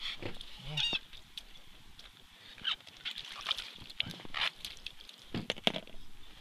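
A perch jerked up through an ice-fishing hole and landing on the ice, with a series of sharp slaps and knocks as it flops and is handled. A brief squeak about a second in.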